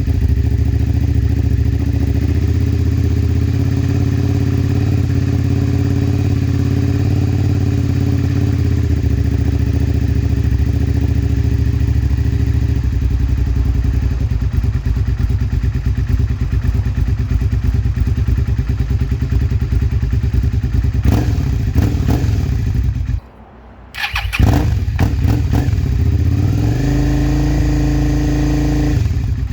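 Suzuki SV650's V-twin engine warming up, running steadily at idle. About 23 seconds in the sound drops away for under a second, and near the end the engine speed rises to a higher, steady fast idle.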